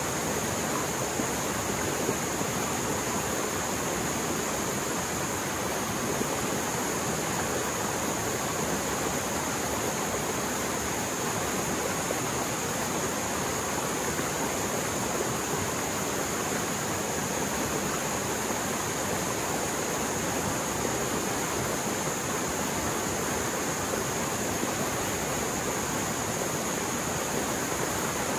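Mountain stream running fast and full after heavy rain, a steady, unbroken rush of water.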